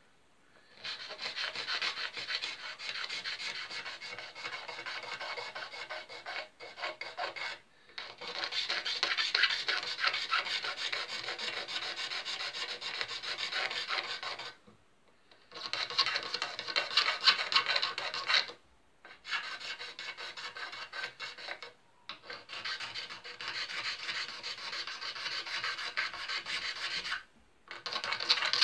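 Abrasive hand rubbing on the wooden headstock of an acoustic guitar during finish levelling, in quick repeated strokes that run for several seconds at a time with a few short pauses.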